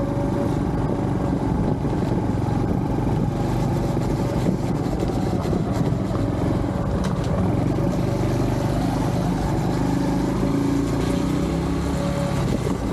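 Honda Trail 125's single-cylinder engine running steadily as the motorcycle is ridden along a dirt trail.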